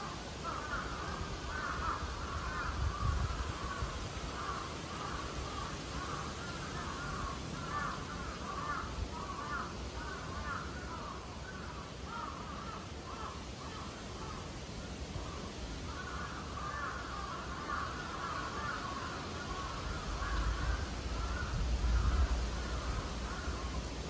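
Dense, continuous chatter of bird calls, easing off for a couple of seconds a little past the middle, over low rumbles near the start and near the end.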